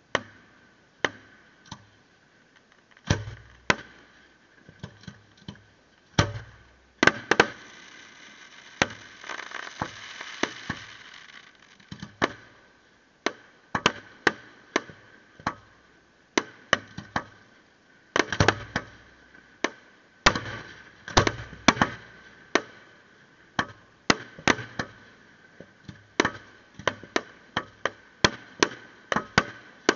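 Fireworks display: a rapid, irregular series of sharp bangs from bursting fireworks, many with a deep boom, coming more densely in the second half. About nine seconds in there are a few seconds of steady hiss.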